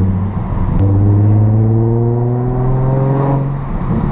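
Nissan sports car's engine heard from inside the cabin, pulling through a gear under acceleration. After a brief dip about half a second in, the revs climb steadily for about three seconds, then the driver backs off near the end.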